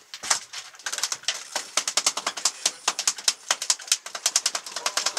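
Fishing reel clicking rapidly and irregularly, several sharp clicks a second, as line is worked on a hooked fish.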